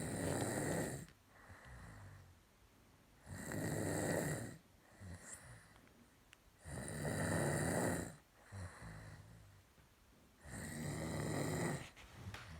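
Snoring: four loud, rasping snores about a second long, coming roughly every three and a half seconds, with quieter breaths between them.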